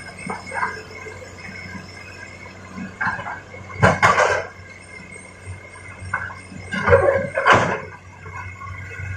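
Excavator at work loading rock: a steady low engine hum, broken by loud, harsh bursts of noise about four seconds in and again around seven seconds in.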